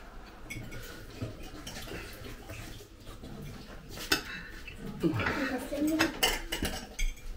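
Metal forks clinking and scraping on plates as people eat, with scattered sharp clinks that are loudest in the second half. A short hum of a voice about five seconds in.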